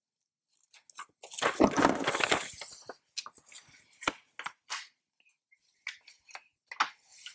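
Long fold-out paper instruction sheet rustling and crackling as it is unfolded and handled. A loud, continuous crinkly rustle comes from about one and a half to three seconds in, followed by scattered lighter crackles and taps.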